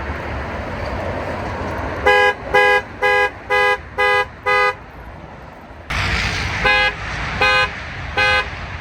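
Car alarm sounding through the car's two-note horn: six quick honks about two a second, then after a short gap slower honks about three every two seconds. A steady rushing noise runs underneath.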